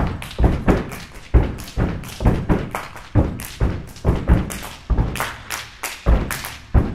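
Step team stomping on a portable riser stage, with hand claps: a fast, uneven rhythm of sharp foot and hand hits, two or three a second.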